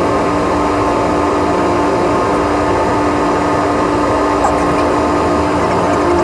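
A steady engine hum, constant in level, with a few held tones over a bed of noise.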